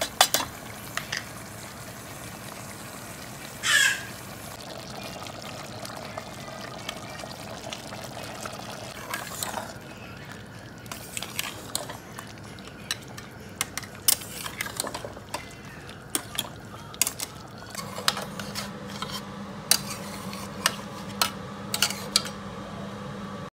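Metal spatula stirring mutton in a steel pot, scraping and knocking against the pot in irregular clicks over a steady sizzling hiss, with a short scraping squeal about four seconds in. A steady low hum comes in about three quarters of the way through.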